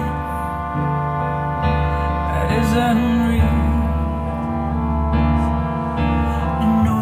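Vocal music with sustained chords and a full bass line, played back through Jennings Research Contrara Pedestal MK1 floorstanding speakers.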